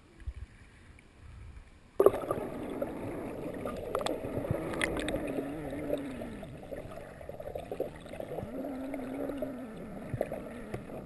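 A waterproofed action camera goes under the river's surface with a splash about two seconds in. After that comes the muffled, steady sound of murky river water heard underwater, with a wavering low hum through it.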